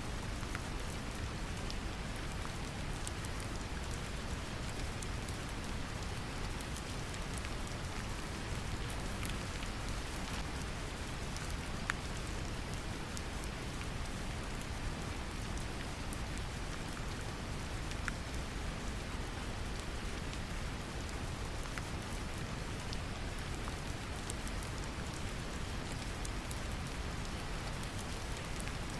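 Steady deep brown noise blended with gentle rain, scattered drops ticking over the low rumble, a couple of them more distinct.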